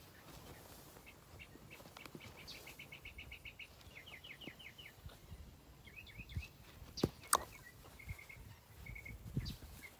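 Small birds chirping in quick runs of short repeated notes, against soft low thuds as a mule scrambles up off the ground. Two sharp knocks about seven seconds in are the loudest sounds.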